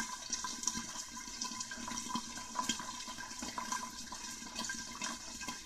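Oil sizzling in a glass-lidded wok of popcorn kernels, with scattered sharp pops as the first kernels begin to burst.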